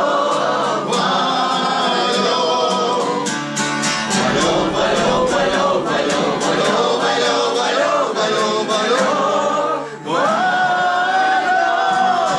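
Several voices singing together, choir-like. A long held note starts just before ten seconds in.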